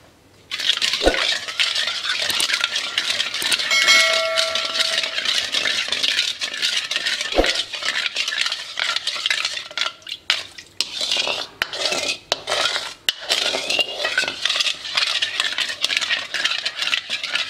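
A ladle stirring a soy and oyster sauce mixture in a wok as it heats, scraping and knocking against the metal over a steady hiss. One ringing clink about four seconds in.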